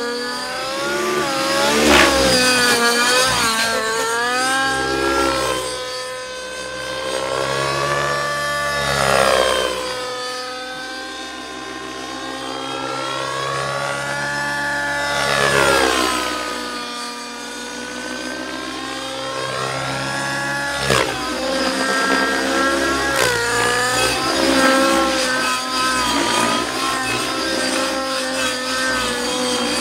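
MSH Protos 700 Nitro radio-controlled helicopter in aerobatic flight: its nitro glow engine and main rotor run continuously, the pitch rising and falling in several long swoops as the helicopter passes and changes load.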